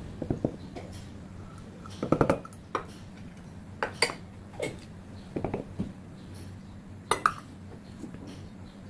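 Metal measuring cups clinking and tapping against a stainless mesh sieve, each other and the counter while flour is scooped into the sieve: a dozen or so light, irregular clinks and knocks, a few with a short ring.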